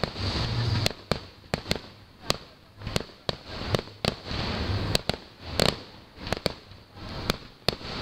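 Fireworks display going off: a rapid, uneven string of sharp bangs and crackles, with rumbling booms between them.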